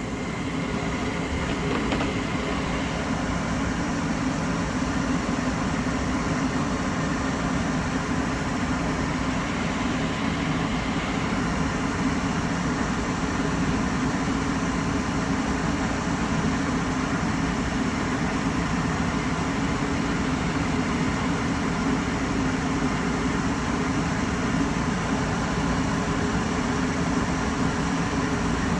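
Goodman gas furnace running steadily with its blower on, a constant low hum with no breaks. It is firing normally after its high-limit switch was replaced.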